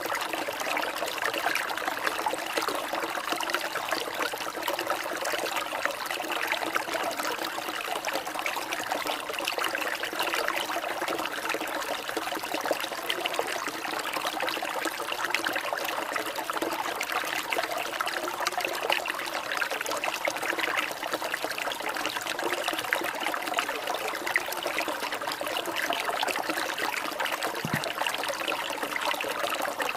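Water trickling and running steadily, like a small stream, with no break.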